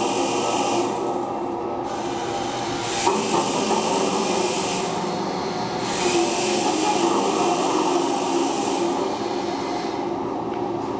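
Motorized metamatic sculpture running: a steady mechanical whirr and rubbing from its motors and rail mechanism, with a scraping hiss that cuts in and out every couple of seconds.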